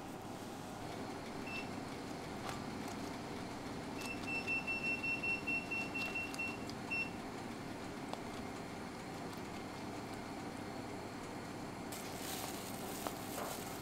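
Electronic beeping from a kitchen appliance over a steady background hum: one short beep, then about four seconds in a run of rapid beeps at one high pitch lasting some two and a half seconds, and another short beep just after. A brighter hiss comes in near the end.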